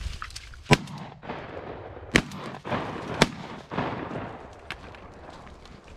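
Three shotgun shots fired at flying ducks: one about a second in, the loudest, then two more about a second apart.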